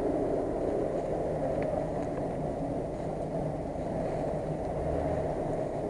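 Jeep Wrangler Rubicon running steadily at low speed as it crawls over leaf-covered forest ground.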